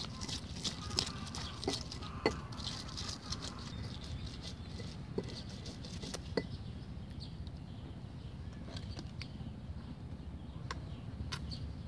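Stone pestle grinding chilies in a stone mortar, with sharp knocks and clicks of stone on stone, frequent in the first few seconds and sparser after.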